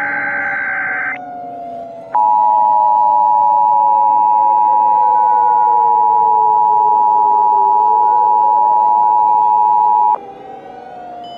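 Emergency Alert System tones: a burst of data tones ends about a second in, then the EAS attention signal, a steady loud two-tone beep, sounds for about eight seconds and cuts off. Underneath, a siren wails slowly up and down throughout.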